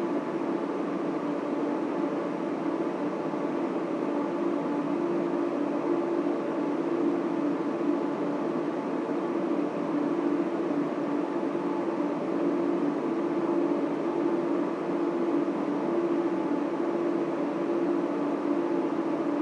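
Data center machinery running: a constant whir with a steady hum in it, holding a few low tones, without any change.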